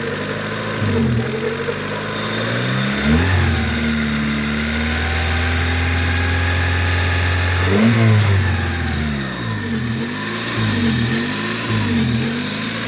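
1994 Honda Civic DX's four-cylinder engine, freshly restarted after a fuel pump replacement and with a leaking exhaust, running with its speed dipping and recovering about once a second. About three seconds in it is revved up and held steady for about five seconds, then drops back to the uneven idle.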